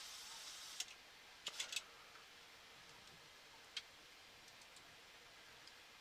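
A few sharp clicks in a Boeing 737-800 cockpit, the sort made by switches, over a faint hiss. The hiss drops with the first click, about a second in; a quick cluster of clicks follows shortly after, then a single click near the middle.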